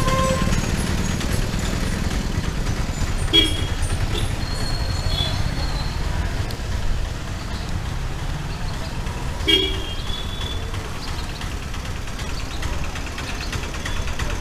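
Street traffic: a steady low engine rumble, with two short vehicle horn toots, one about three seconds in and another about nine and a half seconds in.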